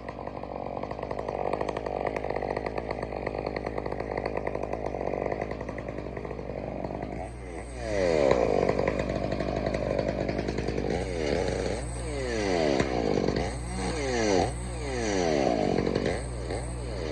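Chainsaw running steadily at first, then from about halfway revved up and down over and over, about once a second, as it cuts into a tree being felled.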